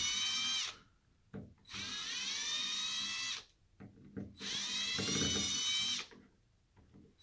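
Cordless drill-driver backing out the Phillips head screws that hold an end cap cover on. The motor whine runs in three short bursts with pauses between: one cuts off just under a second in, then two more of about a second and a half each, each rising in pitch as the drill spins up.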